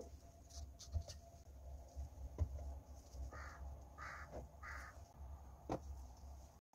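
Faint light knocks of bowls and dishes being set down on a round bamboo tray, over a low steady hum. In the middle come three short rough sounds a little over half a second apart.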